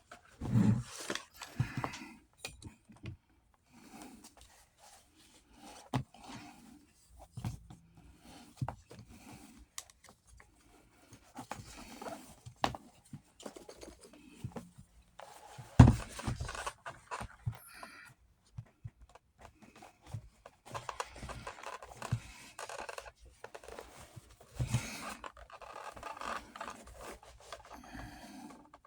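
Hands working on a western saddle's leather and buckle hardware: scattered scrapes, rustles and clicks, with one sharp knock about 16 seconds in.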